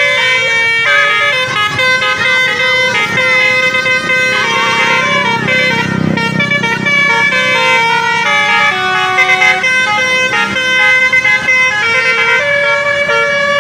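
Telolet horn of a Bluestar bus: a Basuri multi-tone musical air horn playing a tune, several tones sounding together in held notes that step up and down.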